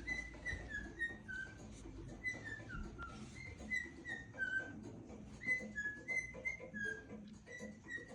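Cockatiel whistling a run of short clear notes, some sliding down in pitch, over faint light clicks.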